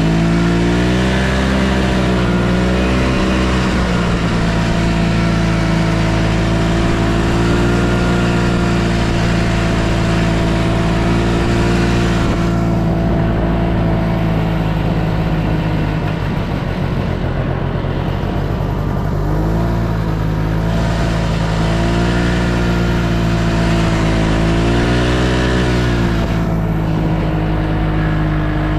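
Yamaha Bravo snowmobile's two-stroke engine running under way, its pitch rising and falling with the throttle. About halfway through it drops to a lower, rougher note for a few seconds, then picks up again.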